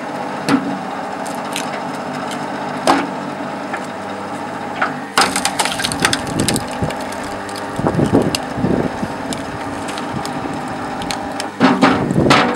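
A 220 V, 4 kW electric hydraulic log splitter runs with a steady motor-and-pump hum while its ram presses a log into the wedge. From about five seconds in the wood creaks and crackles under the pressure, and loud cracks near the end mark the log splitting apart.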